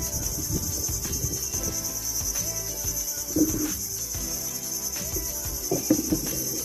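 Steady, high-pitched insect chorus, with a few irregular low knocks underneath, the loudest about three and a half seconds in and again near the end.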